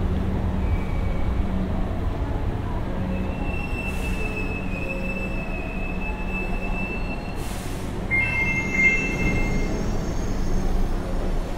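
Electric train pulling out of the station, its wheels squealing on the rails over a steady low rumble: one long high squeal through the middle, then a shorter two-note squeal about eight seconds in.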